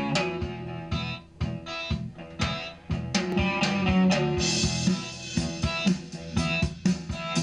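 Recorded guitar-and-drum music played through a Heathkit AA-32 tube stereo amplifier, getting louder from about three seconds in as a front-panel knob is turned.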